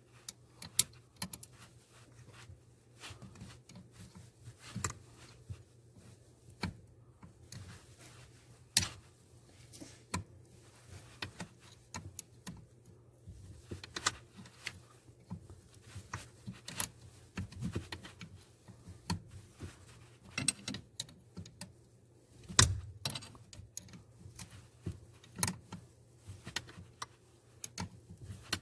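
Ratchet wrench with a 10 mm socket clicking in short, irregular runs as it loosens the screw holding a brake light switch, with one sharper knock about 22 seconds in.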